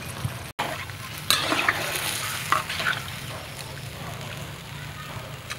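Chili soup simmering and sizzling in a large metal wok, with stirring and utensil scrapes loudest between about one and three seconds in. The sound drops out for an instant about half a second in.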